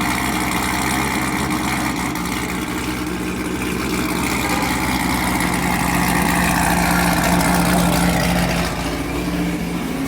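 Vehicle engine running at a steady idle, with a higher whine that slowly falls in pitch through the middle of the sound.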